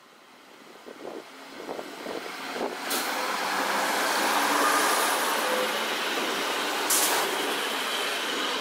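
Regional train led by an Aln 663 diesel railcar running past on the rails, growing louder over the first few seconds as it draws alongside. Two short sharp noises come about three and seven seconds in.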